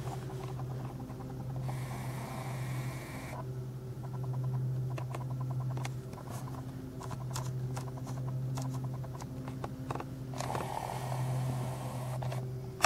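A steady low hum with faint scattered clicks as a handheld camera zooms in and hunts for focus, and two stretches of hiss about two seconds long, one near the start and one near the end.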